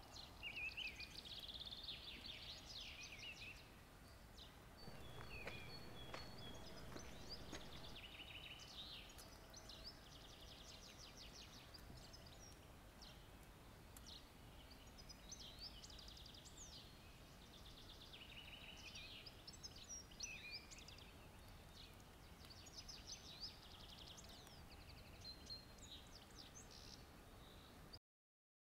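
Faint woodland birdsong: several birds chirping, trilling and whistling over a low outdoor hiss. It cuts off to dead silence near the end.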